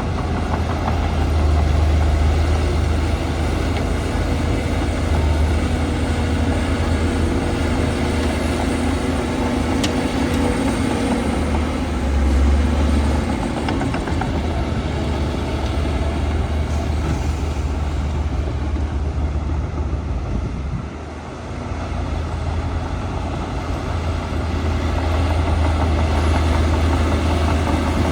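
Heavy diesel earthmoving machinery running steadily under work, with a deep engine drone that eases briefly about two-thirds of the way through before building again.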